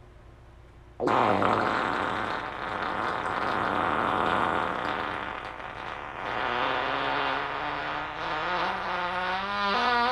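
A long fart that starts suddenly about a second in as a noisy blast, then from about six seconds turns into a pitched tone that wavers and steps up in pitch near the end.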